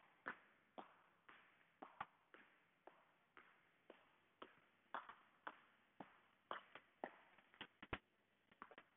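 Faint thuds of feet landing on a floor in a steady rhythm, about two landings a second, from a person doing lateral hops. Near the end the rhythm breaks into a few quicker, uneven taps.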